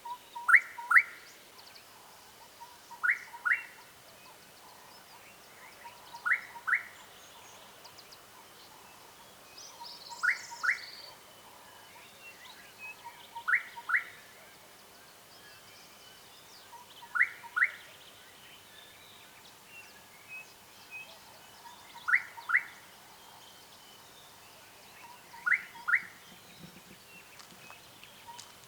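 Gorgeous bush-shrike calling: a short phrase of one or two low notes and then two quick, rising whistled notes, repeated eight times about every three to four seconds.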